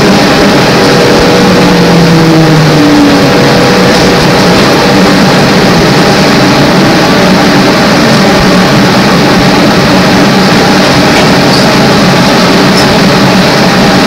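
Interior sound of a GM New Look trolleybus with Brown Boveri electric propulsion under way: steady road and body noise with several steady hum tones from the running gear, and a brief shift in tone in the first few seconds.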